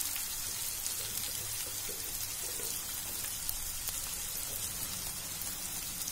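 Diced onions and carrots sizzling in hot ghee in a kadhai: a steady hiss with small crackles.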